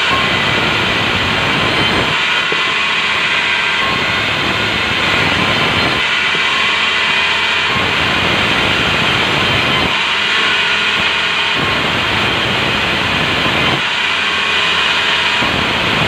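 Sawmill band saw running and cutting through a squared timber beam fed along the table: a loud, steady, high-pitched sawing noise whose lower rumble drops away and comes back about every four seconds.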